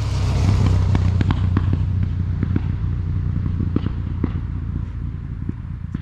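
2011 Harley-Davidson Fat Bob V-twin running through its KessTech ESM3 exhaust: a deep steady rumble with irregular sharp exhaust pops and crackles through it. It swells up at the start and eases off near the end.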